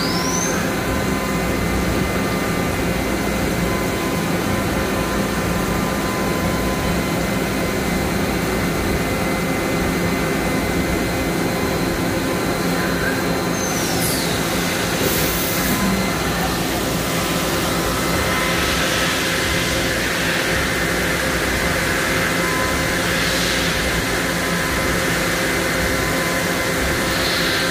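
Makino A51NX horizontal machining center running with a steady machine hum. The spindle whine rises in pitch at the start and winds down about halfway through for an automatic tool change, with short sharp hisses as the tool is swapped. From about two-thirds in, a steady hiss joins as the tool works the part.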